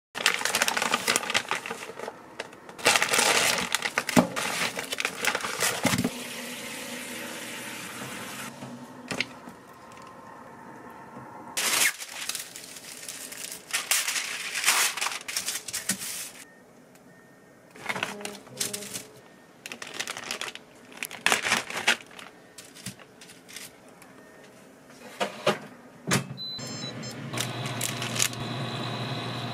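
A string of short kitchen food-prep sounds: hands handling food, plastic packaging and utensils, coming in separate irregular bursts with quiet gaps. A steady appliance hum sets in near the end.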